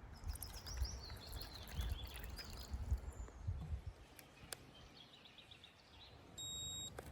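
Outdoor ambience with songbirds chirping and a low rumble of wind on the microphone in the first few seconds. Near the end there is a short, steady, high electronic beep.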